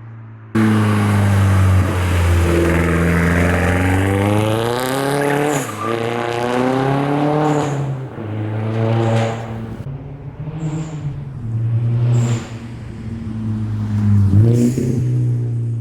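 Straight-piped exhaust of a turbocharged Volkswagen Jetta GLI (catless 3-inch turbo-back, no muffler), loud and raspy as the engine is revved. The revs climb and fall several times. The sound comes in suddenly about half a second in, with a short high hiss as the revs drop.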